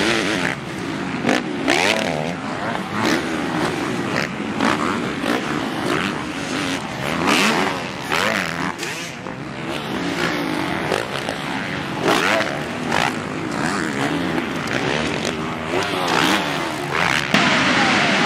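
Motocross bike engines revving up and down as riders race past and go over jumps, the pitch rising and falling with each throttle change. Near the end, a denser sound of a whole pack of motocross bikes revving together.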